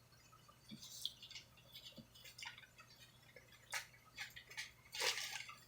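Faint, scattered soft clicks and light rustles of earrings and their small packaging being handled.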